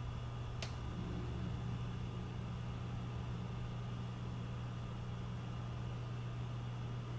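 Small cooling fans in a rack of video gear running with a steady, quiet whir over a low hum. One short click about half a second in.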